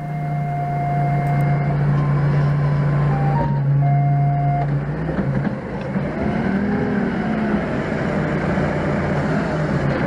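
Forklift engine running steadily as the forklift drives, a continuous low drone whose pitch swells and falls briefly a little past the middle. A few steady electronic tones, each held about a second, sound in the first five seconds.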